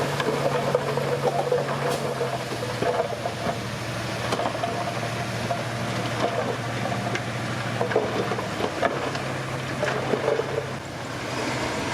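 Komatsu D31P crawler bulldozer's diesel engine running steadily under load, with irregular metallic clanks and knocks from the machine and its tracks.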